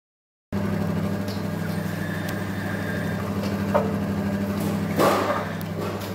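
Small electric ginger-juice press machine running with a steady motor hum, with a few short knocks and clatters, the loudest about five seconds in.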